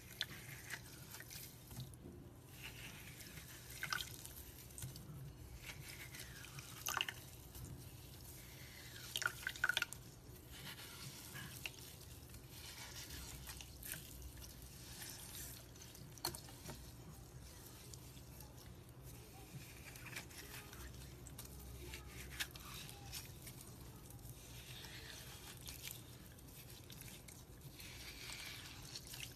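Hands squishing and kneading slime loaded with chunky hexagonal glitter: an irregular run of wet clicks, pops and squelches. The loudest come about four, seven and nine to ten seconds in.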